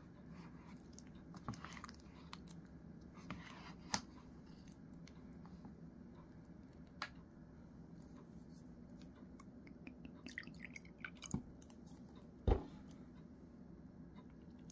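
A person quietly chewing and eating perilla-seed rice-cake soup, with scattered light clicks and one sharper knock about twelve seconds in.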